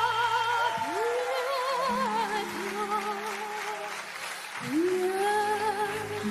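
A young girl singing opera in a powerful voice with wide vibrato over a backing accompaniment, holding long notes and sliding up into new ones about a second in and again near five seconds.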